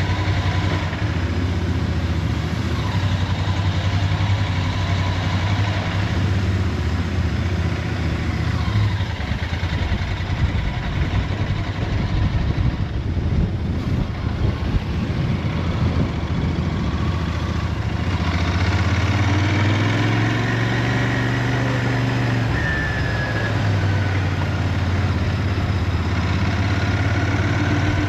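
Royal Enfield Interceptor 650's 648 cc parallel-twin engine through its stock exhaust, running steadily at low riding speed. About two-thirds of the way through, the revs rise for a few seconds under throttle, then drop off suddenly.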